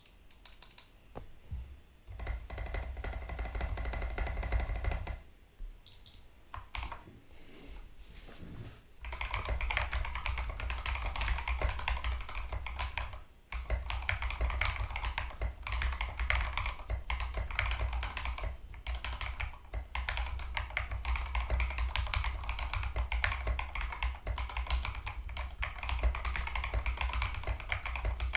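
Typing on a TM680 mechanical keyboard with stock KTT Strawberry linear switches: a short run of keystrokes, a pause, then fast continuous typing from about nine seconds in.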